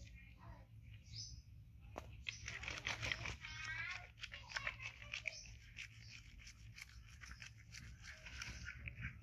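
Soapy hands scrubbing lather over a baby monkey's hand and foot: a faint crackling rub with many small clicks. About three seconds in, a short high animal call sounds over it.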